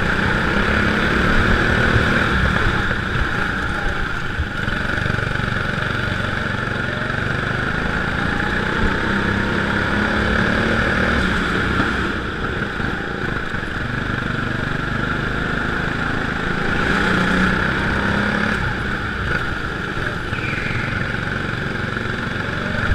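Indoor rental go-kart's petrol engine running under throttle, recorded onboard, its low note rising and falling as the kart laps the corners with other karts running close by.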